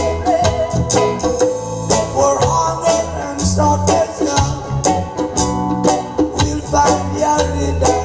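Live roots reggae jam in a one-drop groove: djembe strokes and guitar over keyboard and a deep bass line.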